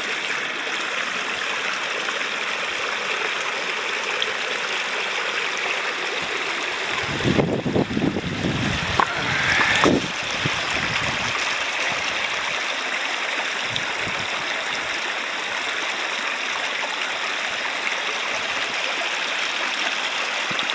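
Upland mountain stream rushing and splashing over rocks in a steady hiss. A few seconds of louder low rumbling come through about a third of the way in.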